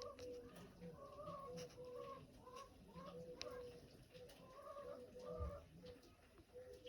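Faint bird calls: short pitched notes repeated about two or three times a second.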